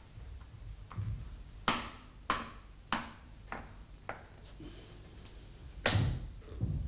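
Light clicks and taps of a disc and seal being pressed into place on a Walterscheid K64 cam-switch clutch housing: about six sharp clicks a little over half a second apart, then a louder knocking near the end.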